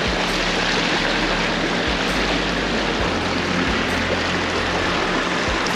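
Steady rushing and splashing of river water against a four-wheel drive as it wades through a shallow river crossing, with a low hum underneath.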